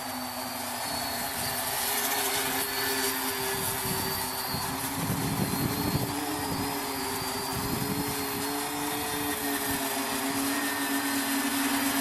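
Home-built quadcopter's electric motors and propellers buzzing in flight: a steady hum whose pitch wavers slightly as the motors adjust. It grows louder toward the end as the quad flies closer.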